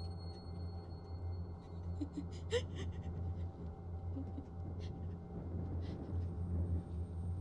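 A woman crying quietly, with gasping breaths and a short rising whimper about two and a half seconds in, over a low steady hum.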